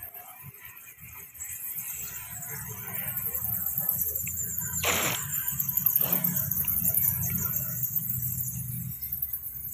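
A steady, high-pitched insect drone over a low rumble, with two sharp knocks about five and six seconds in.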